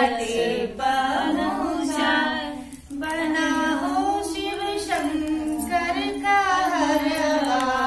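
A woman singing a Chhath puja folk song unaccompanied, in long held, gliding melodic lines.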